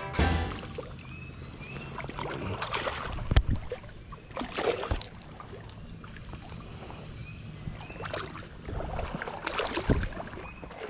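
Water splashing as a hooked smallmouth bass thrashes at the surface of a shallow stream, with a few sharp knocks from handling the fly rod and camera, the loudest about three and a half seconds in. Short high chirps recur every second or two.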